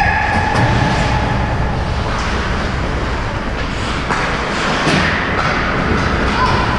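Ice hockey rink noise close to the goal: a steady rumbling hiss of skates on the ice, with a few sharp clicks of sticks and puck.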